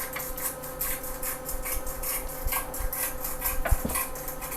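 Hot oil sizzling and crackling in a pan as a boneless pork loin sears, with rapid pops, a steady hum underneath, and a single sharp knock a little before the end.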